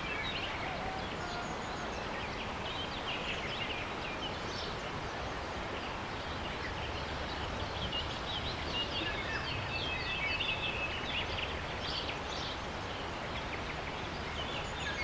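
Outdoor nature ambience: small birds chirping and twittering, many short calls overlapping, with a trilled call about two-thirds of the way in, over a steady low background rumble.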